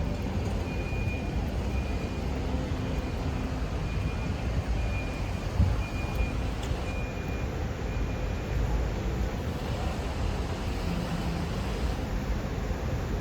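City street noise: a steady rumble of traffic, with a faint high beep repeating about every half second to second through the first two-thirds.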